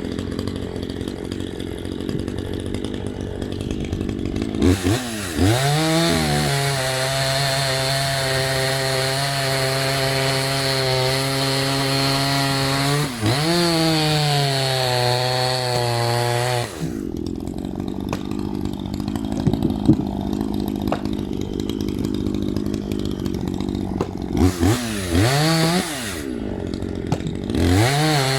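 Maruyama MCV5100S two-stroke chainsaw idling, then revved to full throttle about five seconds in and held for about twelve seconds while cutting wood, with a brief dip in revs partway through. It drops back to idle, is blipped twice, and revs up again right at the end.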